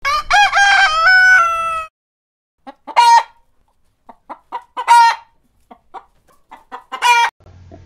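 A rooster crows once, lasting about two seconds. After a short pause a hen cackles: runs of short clucks, each capped by a loud drawn-out squawk, three times about two seconds apart.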